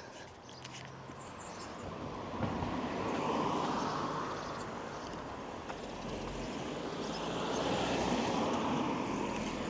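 Road traffic: two vehicles passing one after the other, each a broad tyre-and-engine noise that swells as it goes by and then fades.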